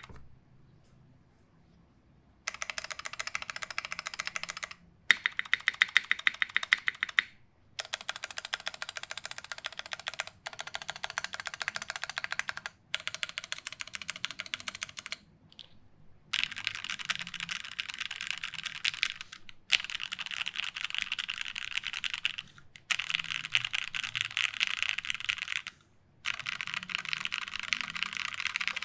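Typing on a Taichi TKL mechanical keyboard with lubed Gateron Black KS-3 linear switches, an FR4 plate and GMK keycaps: fast, steady keystrokes in runs of two to three seconds with short breaks between them. After a near-quiet start there are about nine runs.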